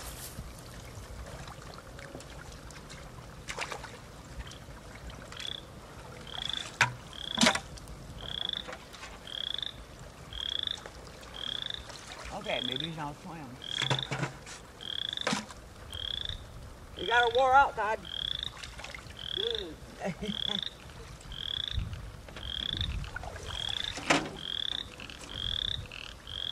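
A frog calling with a short rising peep, repeated a little more than once a second from about five seconds in. A few sharp splashes and knocks fall in between, and a brief wavering sound about two-thirds of the way through is the loudest moment.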